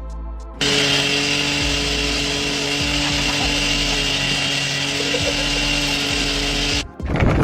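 A motorized machine running steadily, a constant hiss with a steady whine and hum, starting abruptly just after the start and cutting off suddenly near the end.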